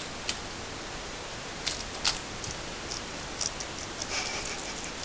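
A guinea pig biting and chewing lettuce from a hand: a few short, crisp clicks and crunches, with a small cluster near the end, over a steady hiss.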